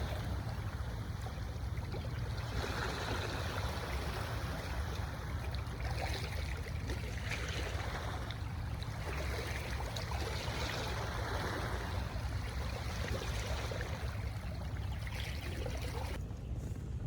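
Surf washing in at the shore, swelling and fading every few seconds, over a steady low rumble of wind on the microphone.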